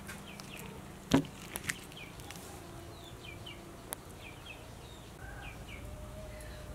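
Small birds chirping repeatedly in the background, short high chirps that slide downward. A single sharp knock about a second in is the loudest sound, with a few lighter clicks after it.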